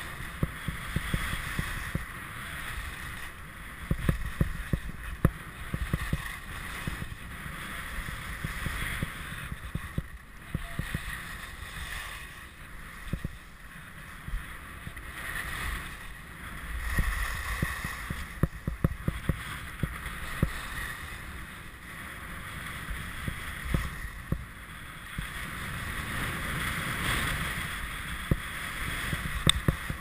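Skis sliding and scraping over packed snow on a groomed run, with wind noise on the microphone and frequent small clicks and knocks. The noise swells and eases several times as the skier turns and gathers speed.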